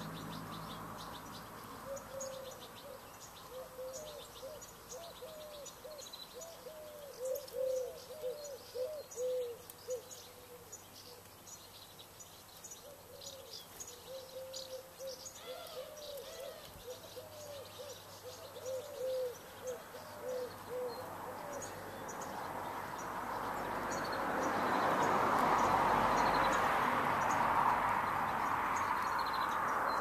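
A pigeon cooing in long runs of low, repeated notes, over thin high chirps from small garden birds at the feeders. About three-quarters of the way through, a broad rushing noise swells up and holds to the end.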